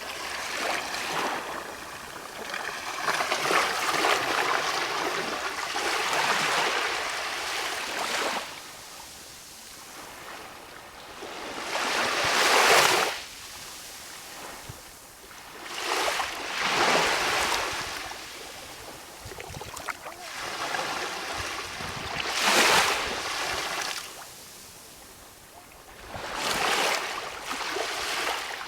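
Small waves of a calm sea washing in and drawing back, a rush of water every four to six seconds that swells and then fades.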